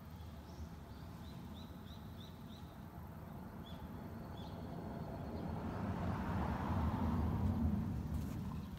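The low rumble of a passing vehicle swells, loudest about seven seconds in, then fades. Over it, in the first few seconds, a bird gives a quick run of short high chirps.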